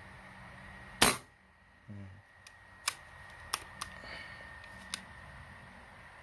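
A single shot from a Moser SJ PCP air rifle, a sharp crack about a second in, fired after its leaking air chamber was repaired. It is followed by a few light clicks.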